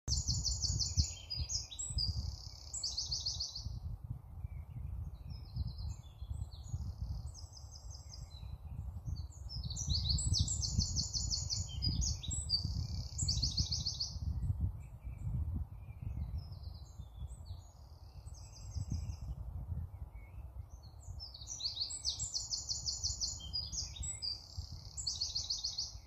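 Small songbirds singing: phrases of fast, repeated high notes in three main bouts, at the start, through the middle and near the end, with scattered chirps between. A low rumble runs underneath.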